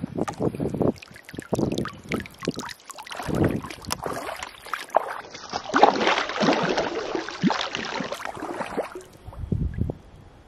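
Shallow lake water sloshing and splashing as a brown trout is released by hand. The splashing is irregular, with a louder, busier stretch from about halfway to near the end as the fish kicks away, then dies down.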